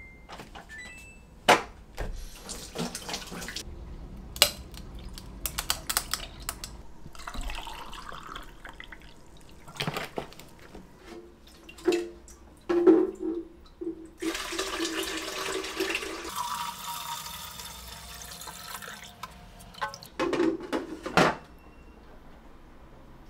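Water poured from a jug into the tank of a stainless countertop appliance, splashing and filling for a couple of seconds past the middle. Scattered clicks and knocks of handling surround it, with a few loud knocks near the end.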